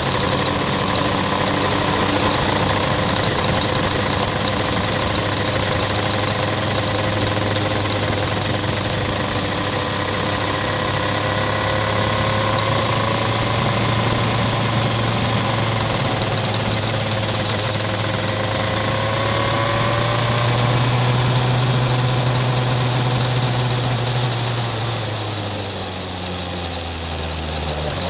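Racing kart engine running hard, heard onboard: a loud, continuous engine note. Its pitch climbs about two-thirds of the way through, then drops as the kart slows for a corner near the end and starts rising again.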